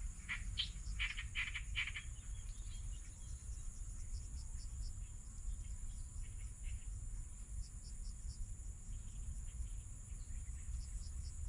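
Frogs calling in clusters of short, quickly repeated notes, loudest in the first two seconds, with fainter calls recurring later. Under them runs a steady high drone of insects and a low steady rumble.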